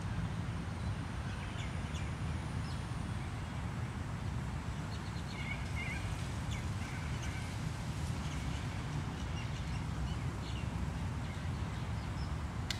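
Steady low rumble of distant city traffic under scattered short bird chirps, busiest around the middle, with one sharp click near the end.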